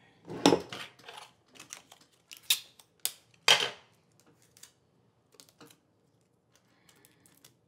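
Jewelry-making tools and small metal parts handled on a wooden work desk: a clatter about half a second in, a few sharp clicks around three seconds in, then faint small clicks of fine handwork.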